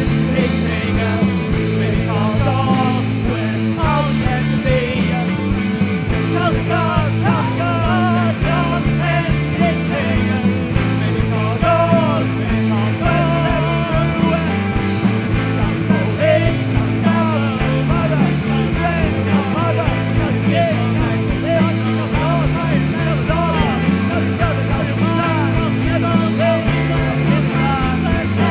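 Psychedelic rock band playing a prog-style passage with no words: a steady bass line moving in held notes under a lead melody that slides and wavers in pitch.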